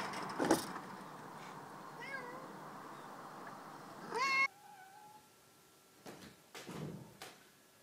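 A domestic cat meowing: a short call about two seconds in, then a louder, rising meow around four seconds in. A thump comes just after the start, and a few softer thumps come near the end.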